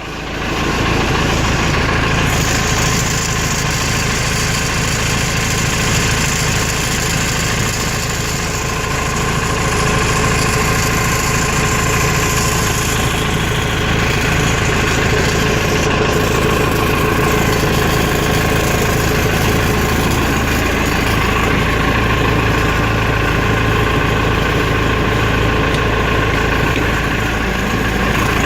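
Caterpillar backhoe's turbo diesel engine idling steadily just after a cold start.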